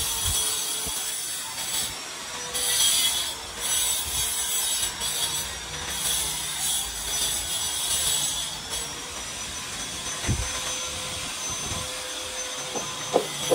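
Damp sponge rubbed in strokes over freshly applied cement render on a wall, giving a gritty scraping hiss that swells and fades with each stroke as the surface is floated smooth. A few short sharp sounds come near the end.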